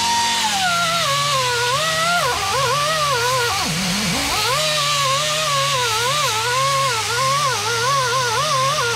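Cordless power tool spinning an abrasive pad against the steel wheel-hub face to clean off rust and scale. Its motor whine wavers up and down as it bogs under hand pressure, over a gritty scraping hiss. About four seconds in it nearly stalls, then spins back up.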